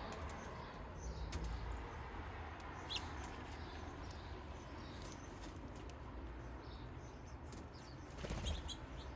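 Bird sounds outdoors: scattered sharp taps and clicks, with a couple of brief, faint chirps about three seconds in and near the end, over a low, steady rumble.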